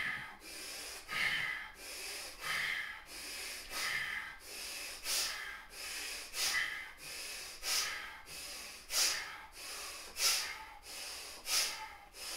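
Bhastrika (bellows breath): rapid, forceful breathing through the nose, a full inhale and a full exhale each taking about two-thirds of a second, in a steady rhythm. The breaths grow sharper and louder from about halfway through.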